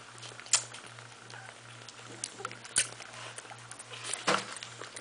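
Newborn Olde English Bulldogge puppies nursing and squirming: scattered soft squeaks and wet smacking clicks, a few sharper ones about half a second in, just under three seconds in and just after four seconds in, over a steady low hum.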